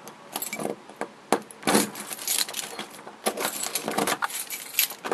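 Keys jangling on a ring as a key is worked in a doorknob lock: a run of irregular metallic clicks and jingles.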